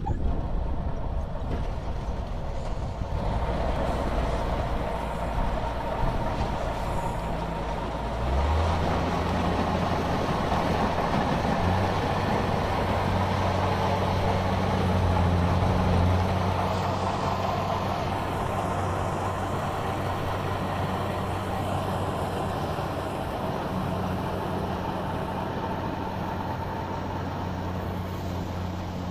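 Kubota crawler combine harvester running while harvesting rice: a steady diesel engine drone with the whir of its working machinery. About eight seconds in, the engine note steps up and grows louder, then eases slowly over the last part as the machine moves off.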